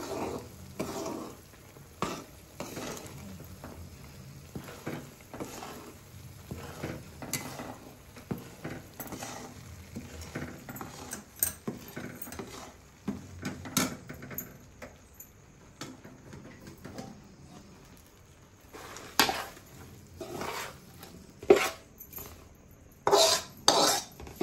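Steel spatula stirring and scraping melted jaggery and ghee in an aluminium kadhai, with irregular clinks against the pan. The louder knocks and scrapes near the end come from the spatula scraping the syrup out of the tipped pan into a bowl of ground peanuts, the step where peanut ladoo mixture is combined.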